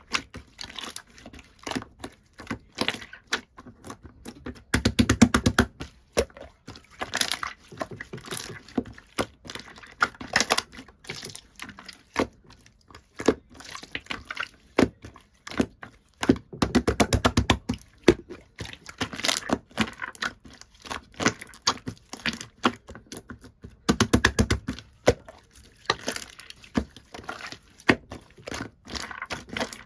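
Pearl-shimmer slime being pressed, poked and stretched by hand, making sticky clicks and small pops of trapped air, with three spells of rapid crackling: about a sixth of the way in, just past halfway, and around the three-quarter mark.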